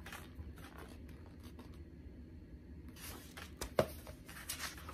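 Paper rustling and brushing as a picture book's pages are handled and turned, getting busier in the last couple of seconds, with one sharp tap a little under four seconds in that is the loudest sound.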